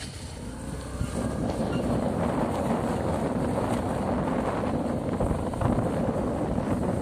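Motor scooter ride: the scooter running along a rough lane with wind buffeting the microphone, a steady rumbling noise that builds over the first second or two.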